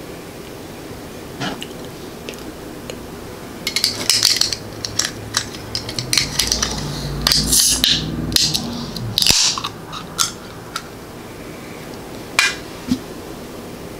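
A drink can being handled and its pull tab cracked open: a run of sharp clicks, scrapes and taps with short hisses, then two lighter taps near the end.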